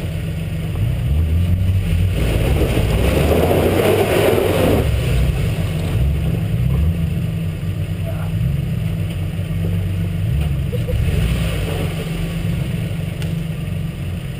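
4x4 truck engine running with a steady low rumble, heard from a camera on its hood. About two seconds in, a louder rushing surge comes in for about three seconds and then dies away.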